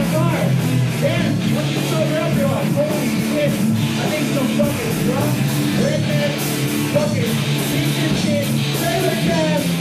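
Live punk rock band playing: distorted electric guitar and drums driving along steadily, with a singer yelling into the microphone over them.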